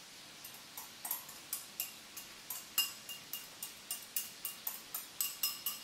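Light, sharp clicks and clinks at a bowl, several a second, some leaving a faint ring, as cream is emptied from a carton into a ceramic bowl.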